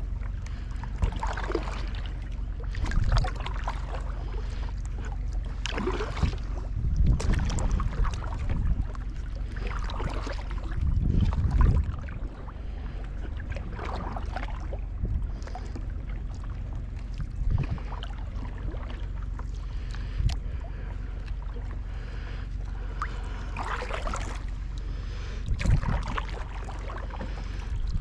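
Double-bladed kayak paddle strokes, the blades swishing and splashing through calm water every one to three seconds, over a steady low rumble.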